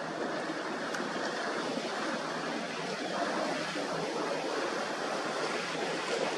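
Steady rush of waves and choppy water with wind on the microphone.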